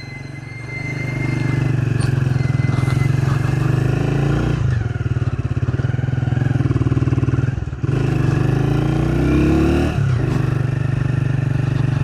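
Motor vehicle engine running steadily under load on a hill road. It dips briefly about four and a half, eight and ten seconds in, with the pitch sliding between.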